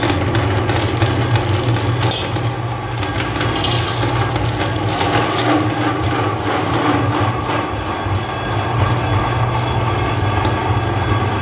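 Electric meat grinder running with a steady motor hum while hard candies are crushed in its feed screw, giving irregular crunching and clicking over the hum.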